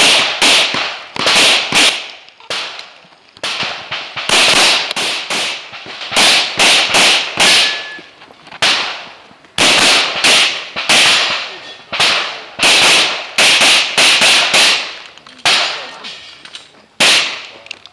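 A Glock 24 pistol in .40 S&W fired in rapid strings during a practical-shooting stage: about thirty sharp shots, many in quick pairs a fraction of a second apart, with short pauses between groups.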